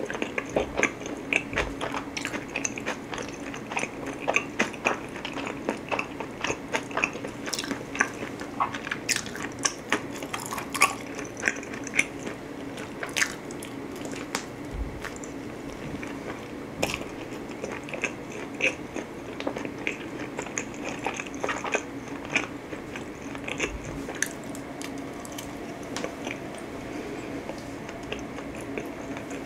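A person chewing and biting pizza close to the microphone: soft crunches and wet mouth clicks, irregular and continuous.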